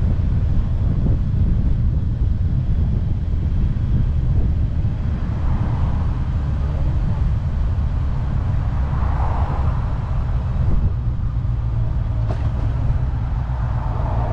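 Honda CBR650F's inline-four engine running steadily while the bike is ridden, with wind noise on the microphone. A single click about 12 seconds in.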